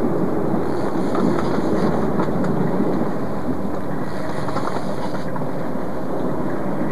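Boat engine running steadily under way, with wind rushing over the camcorder microphone; a higher hiss rises over it twice.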